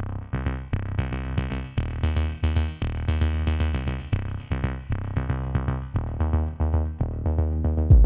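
Electronic intro music: a synthesizer melody of short repeated notes over a drum-machine beat and heavy bass.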